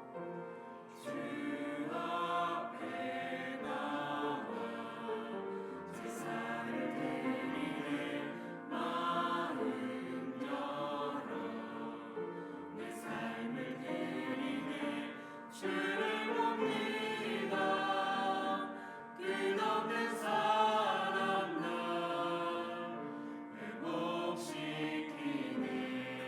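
Church choir singing a worship song in sung phrases, with short breaks between them.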